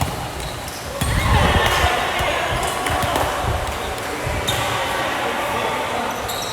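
Basketball bouncing on a gym floor: a run of low thumps in the first two-thirds, with players' voices echoing in the hall.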